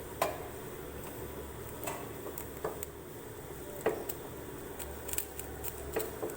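Coconut oil heating in a pan with karpooravalli (Indian borage) leaves and edible camphor: a steady low hiss with scattered sharp crackles and pops as the leaves fry.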